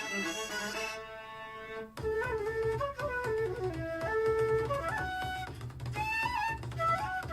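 Instrumental music played back through a small Bluetooth speaker. A melody of held notes runs over the first two seconds, then a bass line and a moving melody come in about two seconds in.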